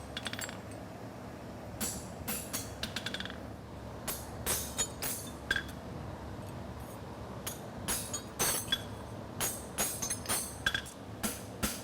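Light, irregular hammer taps on a steel horseshoe against an anvil, some ringing briefly, as the shoe's edges are smoothed for a hammer finish. A steady low fan hum runs underneath.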